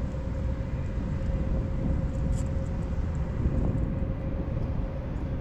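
Steady low rumble with a constant hum from the motorized kayak's motor running, and a few faint handling clicks about two seconds in.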